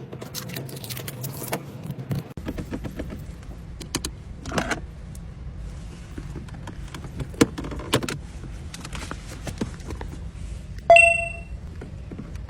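Car keys being handled: jangling and scattered clicks over a low steady hum. A single bright ringing ding sounds about eleven seconds in.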